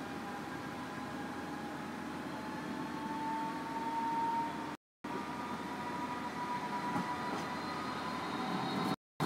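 Electric low-floor tram approaching and passing close by: a steady whine that rises slightly in pitch over the rumble of wheels on rail, growing louder as it nears. The sound cuts out completely for a moment twice, about halfway through and just before the end.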